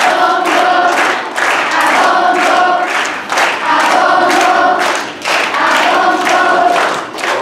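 Children's choir singing in unison in phrases of a couple of seconds, with rhythmic hand clapping at about two to three claps a second keeping the beat of a Cuban song.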